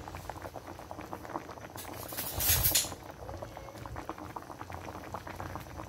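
Coconut-milk curry boiling in a pot, a fast patter of small popping bubbles. About two seconds in, a louder rush of noise lasts about a second.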